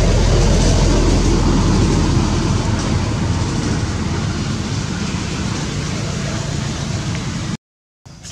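Loud steady rumble with hiss that slowly fades, then cuts off abruptly near the end into a brief dead gap before a quieter background resumes.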